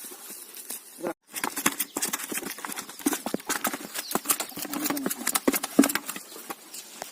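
Freshly caught fish flapping, a rapid irregular run of sharp slaps and patters, with a brief break about a second in.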